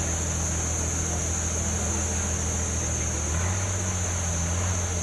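Boat engine running steadily with a low hum that steps up slightly in pitch a little over three seconds in, under a constant hiss.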